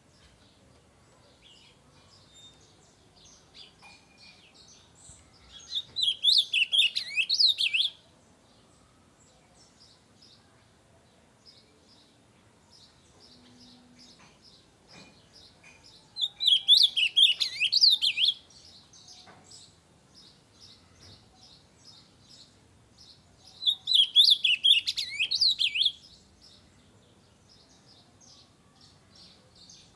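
Ultramarine grosbeak (azulão) singing: three loud, warbled song phrases of about two seconds each, some eight to ten seconds apart. Faint quick chip notes fill the gaps between phrases.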